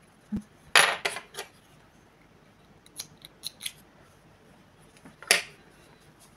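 Small scissors snipping cotton thread ends on a crocheted piece: a few sharp snips about a second in, some light clicks around three seconds in, and one more loud snip just past five seconds.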